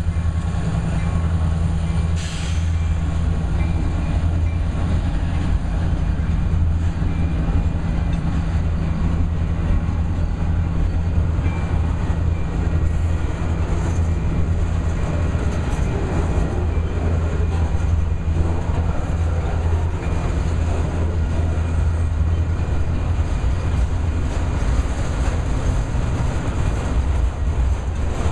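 Freight train of multilevel auto rack cars rolling past: a steady, loud rumble of steel wheels on rail, with a brief metallic clank about two seconds in.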